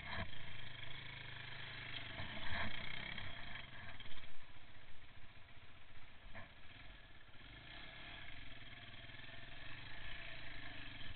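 Off-road vehicle engine running steadily at low revs as it crawls along a rutted, muddy track, with a few short knocks and clatters from the machine jolting over the ruts, about two and a half and six seconds in.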